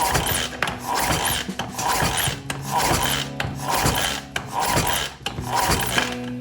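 Rhythmic rasping strokes, about two a second, like a hand tool being worked back and forth against a workpiece.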